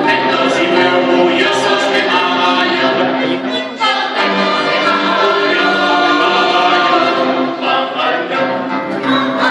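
A choir singing with a large instrumental ensemble in a live performance, the music dipping briefly about four seconds in before carrying on.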